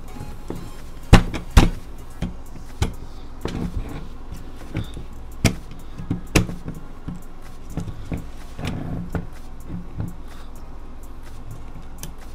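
Hand-assembly handling noise: 3D-printed plastic parts knocking and clicking against steel rods and bolts as a carriage piece is fitted over them. Two sharp knocks come about a second in, with lighter clicks scattered after.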